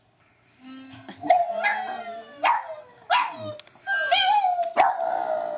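Dogs barking and howling: a Boston terrier howling along with dogs howling on a TV video. About five sharp barks, each sliding into a wavering howl, the last howl held longer near the end.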